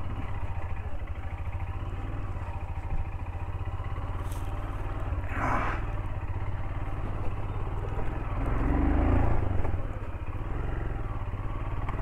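Motorcycle engine running steadily under way, a low pulsing rumble that swells louder for about a second some eight to nine seconds in.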